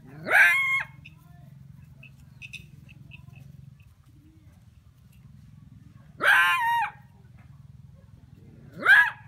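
Three short animal calls, each sweeping sharply up in pitch and then holding briefly: one near the start, one about six seconds in, and a shorter one just before the end.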